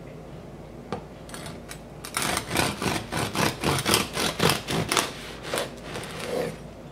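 Serrated bread knife sawing through a crisp-crusted breakfast roll: the crust crackles and crunches in quick strokes, about four a second, starting about two seconds in and dying away as the blade passes through.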